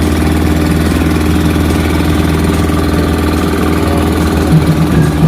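Fishing boat's engine running steadily at a low, even pitch, with a few louder surges near the end.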